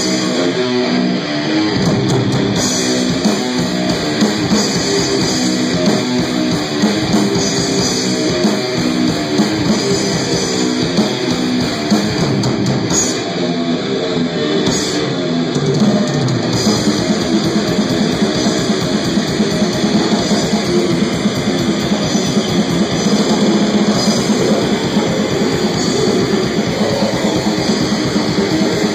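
Live death metal band playing loud and without a break: distorted electric guitars over a drum kit.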